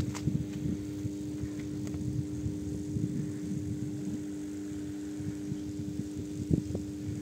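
Steady electrical hum of a high-voltage substation, several even tones held without change, with wind buffeting the microphone in uneven gusts, the strongest near the end.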